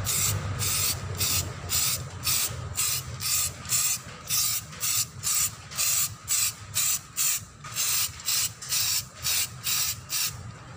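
Samurai aerosol spray can of primer hissing in short, rapid bursts, about two to three a second, as the first primer coat goes on.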